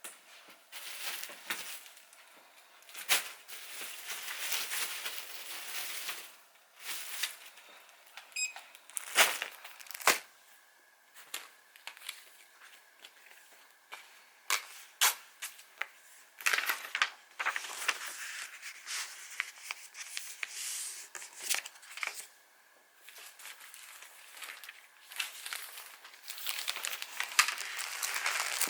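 Plastic and paper packaging crinkling and rustling in uneven bursts, with sharp clicks and knocks throughout, as orders are handled and packed.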